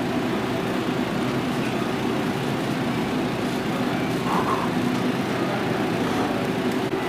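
Steady hum and rumble of refrigerated display coolers and store ventilation, with several constant low tones.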